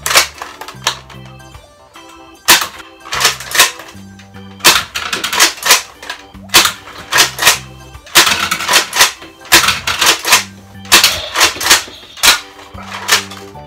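Nerf N-Strike Longstrike CS-6 spring-powered dart blaster being primed and fired over and over: clusters of sharp plastic clacks every second or so. Background music with a bass line runs underneath.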